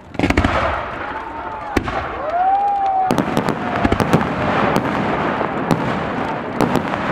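Firework display: a loud burst opens it, then a dense barrage of shells bursting, with many sharp cracks and crackles from about three seconds in.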